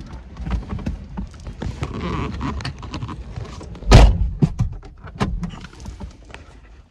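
A VW Caddy camper van's door handled with clicks and knocks, then slammed shut with one loud thud about four seconds in.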